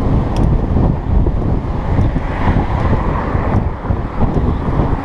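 Wind buffeting the microphone of a camera carried on a moving mountain bike: a loud, uneven rumble that rises and falls.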